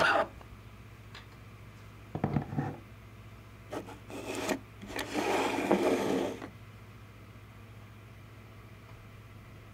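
Short bursts of hard plastic rubbing and knocking as a 3D-printed plastic gearbox model is handled, the longest a scraping rub of about a second and a half near the end, over a steady low hum.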